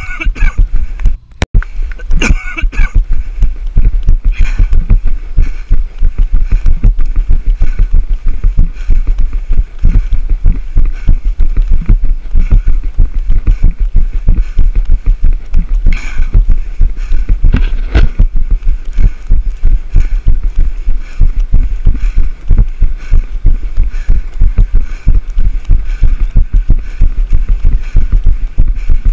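A runner's footfalls jolting a body-worn action camera in a fast, steady rhythmic thumping, stride after stride, with a low rumble on the microphone. The sound drops out briefly about a second in.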